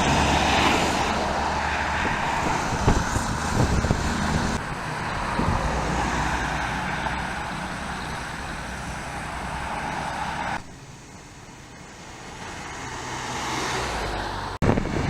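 City street traffic noise: cars and other vehicles going by. It drops off suddenly about ten and a half seconds in, then builds again.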